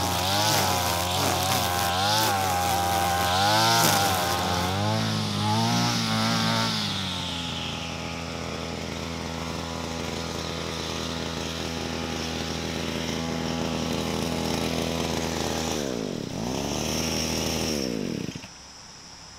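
Petrol brush cutter engine running, its speed rising and falling while it cuts grass, then holding steady. Near the end the engine speed dips and picks up again before the sound cuts off suddenly.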